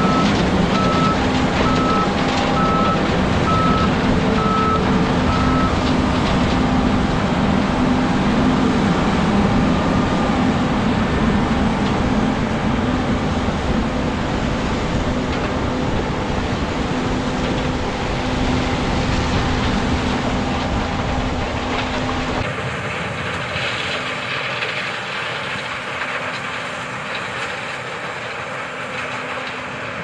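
John Deere S680 combine running steadily while harvesting corn, a continuous engine and machinery drone. A repeating beep sounds for about the first six seconds, then stops. Around three quarters of the way through, the low rumble drops away and the sound grows thinner and a little quieter.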